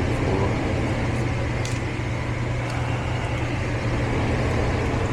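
Steady low mechanical hum of a running motor with an even hiss over it and a few faint light clicks.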